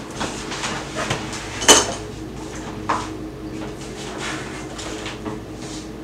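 A few sharp knocks and clatters, the loudest just before two seconds in and a smaller one about a second later, over a steady low hum.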